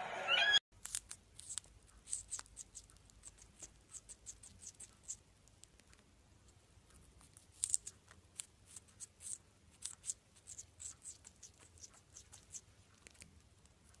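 A cockatiel's whistle cuts off in the first moment. Then a blue Indian ringneck parakeet bites at leafy greens with its beak: a quick, irregular run of crisp little clicks and snips, pausing for a couple of seconds midway.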